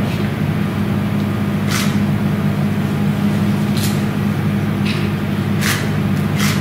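Laser weapon-training simulator rifle firing. Each shot's CO2 recoil charge gives a short hissing pop, five times at irregular intervals, over a steady low hum.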